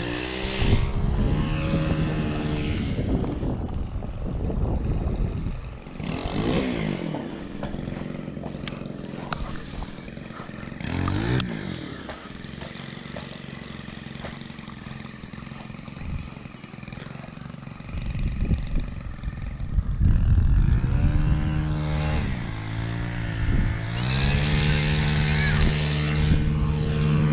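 A motor engine running, its pitch dipping and climbing back several times as it revs, then holding steady near the end.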